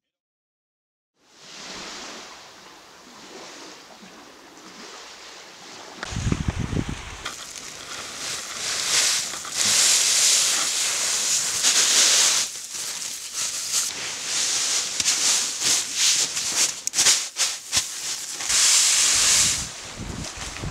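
Wind and surf on a beach: a hissing rush that starts after about a second of silence and turns louder and gusty from about seven seconds in, with a brief low rumble of wind on the microphone about six seconds in.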